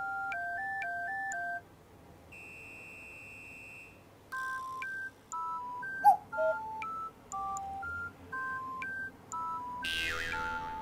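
Background music: a simple electronic melody of pure, beep-like notes sounding two at a time, pausing for a few seconds and then picking up again. A brief, loud sound with a bending pitch cuts in about six seconds in, and a short noisy swish comes near the end.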